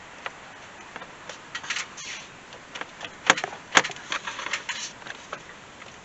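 Scattered clicks and rattles of plastic intake parts being handled and worked loose under the hood, with two sharp clicks a little past halfway through: the air intake hose and housing coming off.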